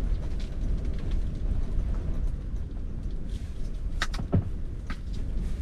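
A steady low rumble in an ice fishing shelter. About four seconds in there are a few sharp clicks and one thump as the tray of steak and gear on the floor are handled.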